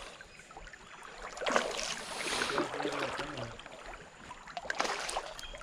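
Creek water splashing and moving, swelling for a couple of seconds in the middle, with a few sharp splashes near the end.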